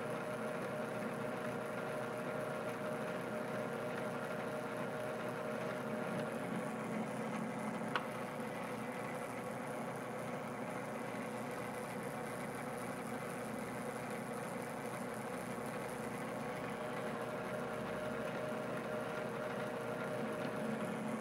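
Metal lathe running steadily under power feed while the threading tool takes a six-thousandths-deep pass on a thread. There is a single sharp click about eight seconds in.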